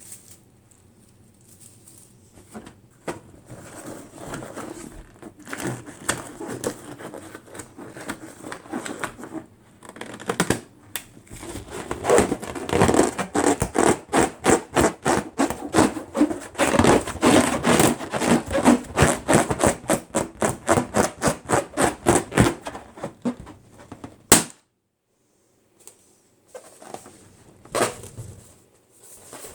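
Latex balloon being handled: scratchy rubbing, then a long run of rapid rhythmic squeaks and scrapes, about four a second. About 24 seconds in comes one sharp, loud balloon pop.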